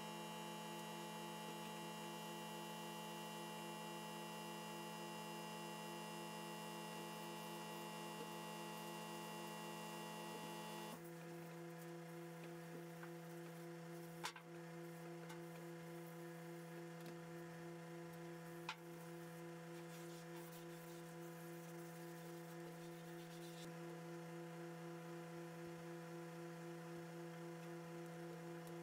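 Faint steady electrical hum made of several held tones, one of them pulsing. The mix of tones shifts abruptly about eleven seconds in, and two light taps come near the middle.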